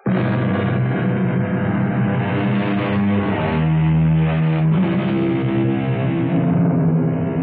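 Instrumental music that starts suddenly, with held low notes that change every second or two.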